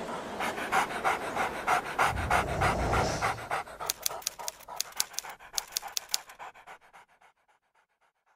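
A dog panting rhythmically, about four pants a second, fading away near the end.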